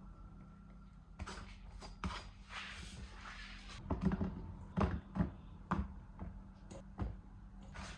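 A series of irregular knocks and clatters of objects being handled, the loudest clustered in the second half, with a brief rustling hiss a couple of seconds in, over a steady low hum.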